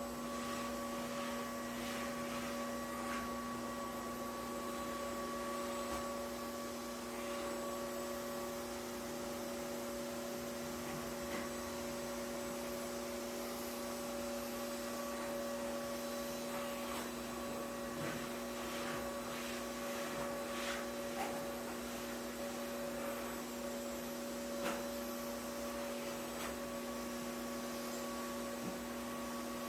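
Vacuum cleaner running steadily: an even whirring hum with a constant pitch, and a few faint ticks now and then.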